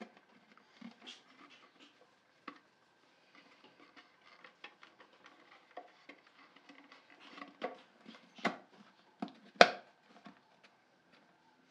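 Handling sounds of a thin hardboard back panel being fitted into a wooden box while wires are pushed aside: scattered light taps, clicks and rustles, with a few sharper knocks late on, the loudest about two seconds before the end.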